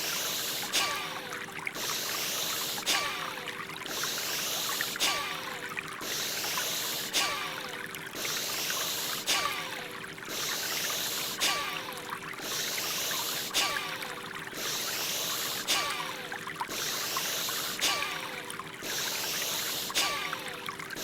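Breathing sound effect for Bhastrika pranayam: deep, forceful breaths in and out in an even rhythm, one full breath about every two seconds. Underneath run flowing water and a few steady held tones from the background music.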